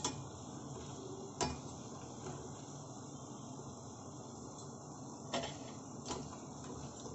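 Koftas deep-frying in oil in a steel kadai: a steady low sizzle, with a few sharp clicks of a metal slotted spoon against the pan as the fried koftas are lifted out.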